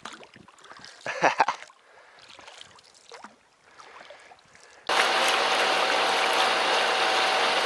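Water trickling softly, with a short splash about a second in. About five seconds in it switches abruptly to the loud, steady drone of a boat motor with a constant hum.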